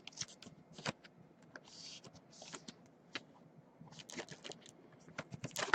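Quiet, irregular clicking of typing on a computer keyboard, with a couple of short soft rustles about two seconds in.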